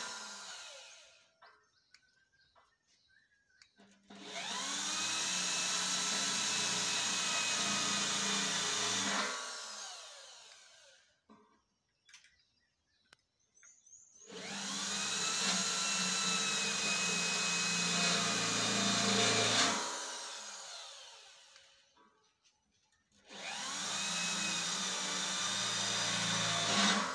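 Handheld electric drill boring holes through a sheet-steel box: each time the motor whines up to speed, runs under load for about five seconds, then winds down as the trigger is let go. Three such runs with short quiet pauses between, and the tail of one more right at the start.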